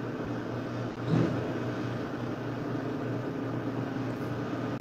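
Steady low hum over even background noise, with one brief louder swell about a second in.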